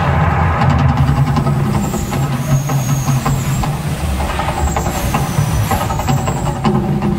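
Fire show of an artificial volcano attraction: a loud, deep, continuous rumble with repeated sudden whooshes as gas flame jets fire fireballs from the summit and across the lagoon.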